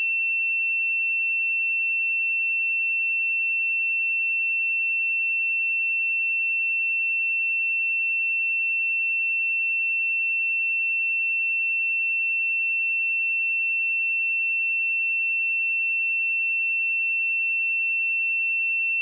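A pure 2695 Hz sine-wave test tone, held steady at one pitch and level, used for checking speakers and headphones.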